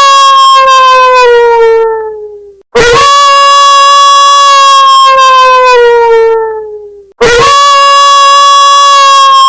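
Wolf howling sound effect played on a phone at a very loud volume, repeating: each howl starts abruptly, holds one steady pitch, then slides down and fades. One howl ends near the start, a second fills the middle, and a third begins near the end.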